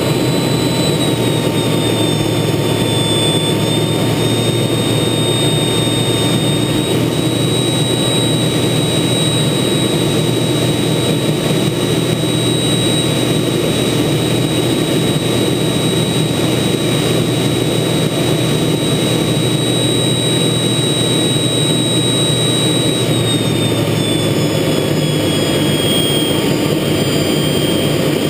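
TA-4J Skyhawk's J52 turbojet and the airflow over the canopy, heard inside the cockpit in flight: a loud, steady roar with a high whine that dips slightly in pitch about a second in and again near the end.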